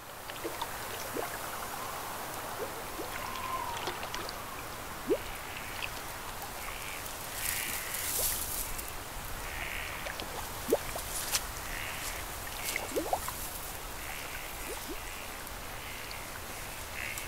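Outdoor pond-side ambience: a steady hiss with scattered small clicks and brief chirps. From about seven seconds in, crows caw again and again.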